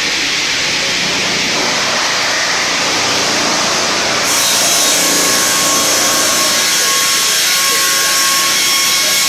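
Circular sawmill with two saw blades set at right angles, running and sawing a spruce log in one steady, loud noise. About four seconds in, the noise turns higher and a little louder.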